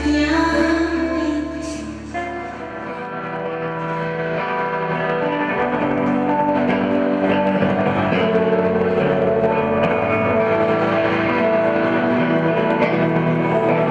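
Live band music led by guitar, with sustained ringing notes; it thins out about two seconds in, then swells back up.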